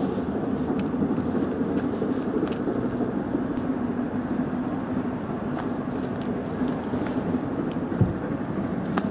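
A train approaching in the distance: a steady low rumble with a constant hum, and a single short knock about eight seconds in.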